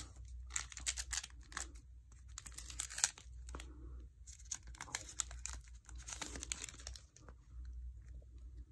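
Foil wrapper of a Panini Prestige football card pack crinkled and torn open by hand, in several short crackling bursts.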